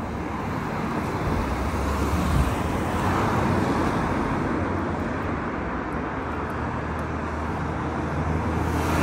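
Road traffic on a city street: cars driving past with tyre and engine noise, swelling about two to three seconds in and again near the end.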